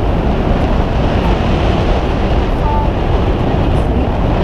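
Steady, loud rush of wind on the microphone and sea noise aboard a whale-watching boat at sea, with the boat's engine running underneath.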